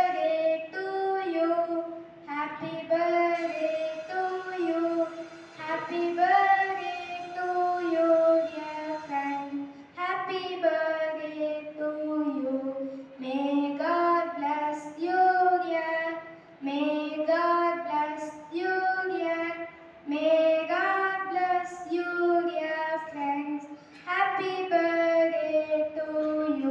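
A girl singing solo into a microphone: one unaccompanied child's voice carrying a melody in phrases a few seconds long, with short breaks for breath.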